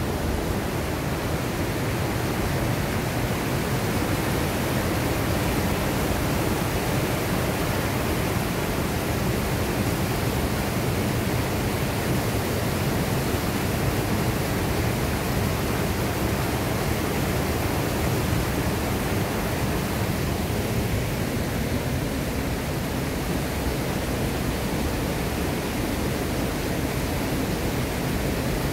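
Mountain stream water rushing over a small waterfall cascade through channels in smooth bedrock, a steady rush without a break.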